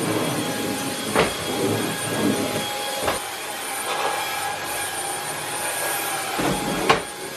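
Cordless stick vacuum running steadily with a high motor whine as its floor head is pushed over a rug and a wooden floor. Three sharp knocks come through, about a second in, at three seconds and near the end.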